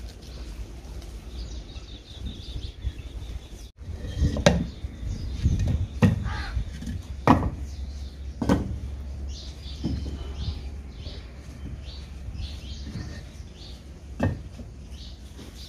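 Bricks knocked and set against a concrete duck house at its small doorway: several sharp knocks starting a few seconds in, one more near the end, with birds chirping in the background.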